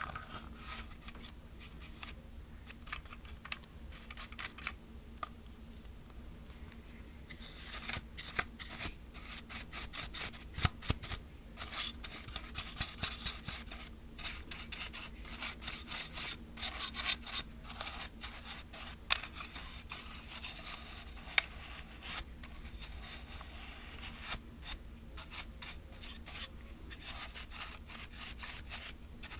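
A dry brush sweeping the inside of a plastic film camera: quick scratchy bristle strokes with light clicks on the hollow plastic, sparse at first and much busier from about eight seconds in.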